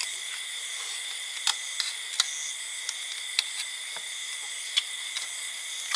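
Steady high-pitched insect chorus with several sharp clicks or taps scattered through it.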